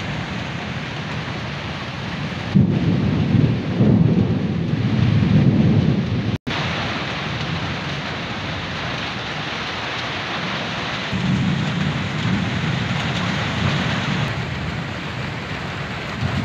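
Heavy rain pouring steadily onto leaves and a corrugated tin roof, with deep rumbling swells twice along the way. The sound drops out for a split second about six seconds in.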